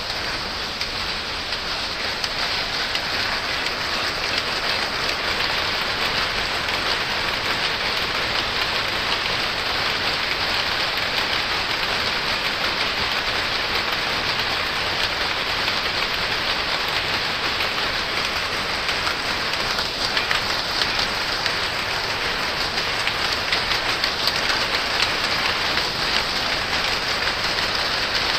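Many power looms running together in a weaving shed, a dense, steady clatter of many machines at once.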